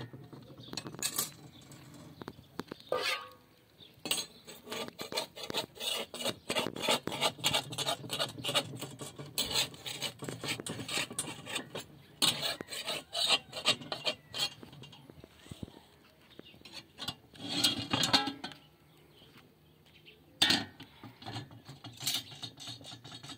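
Small metal spatula scraping and tapping over a thin flatbread on a hot black iron griddle, in runs of quick rasping strokes broken by short pauses.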